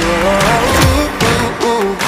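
Background music with a wavering melody over a steady beat.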